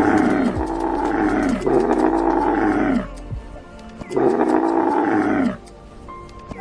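An animal calling over and over in loud, drawn-out calls, each about a second or so long and dropping in pitch at its end, with a short pause about halfway through.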